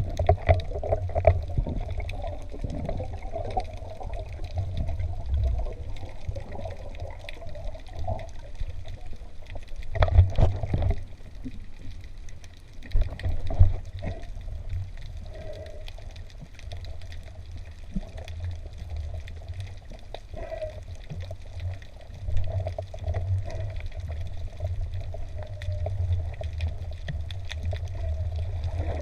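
Moving water with a steady low rumble and scattered faint clicks.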